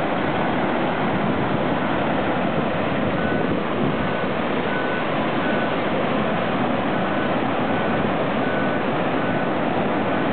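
Muddy flash-flood water rushing across a wide wash, a steady loud noise of flowing water and debris. A faint high beep repeats about every three quarters of a second, like a truck's reversing alarm.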